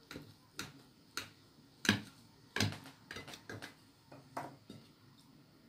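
Table knife cutting through a stack of buttered potato pancakes, its blade clicking and scraping against the ceramic plate in a run of sharp taps about every half second, stopping near the end.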